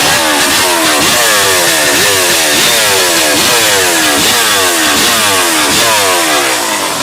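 Honda CR500 two-stroke single-cylinder engine driving a large chainsaw, running loud and being revved in repeated throttle blips about one and a half times a second, each a sharp rise in pitch that slides back down.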